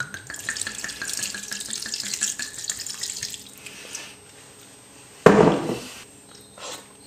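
Red wine poured from a bottle into a simmering stew in a cast-iron Dutch oven, a steady pour lasting about three and a half seconds. About five seconds in, a single sharp knock.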